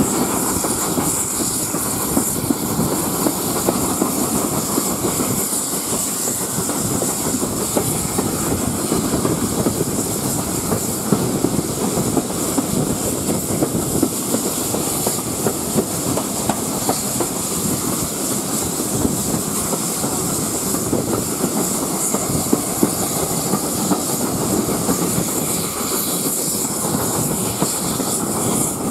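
Steam-hauled train at speed heard from an open carriage window, the train double-headed by GWR Manor 4-6-0 No. 7828 Odney Manor and GWR Mogul No. 9351. The coach wheels clickety-clack over the rail joints under a steady rush of wind and running noise, with steam from the locomotives working ahead.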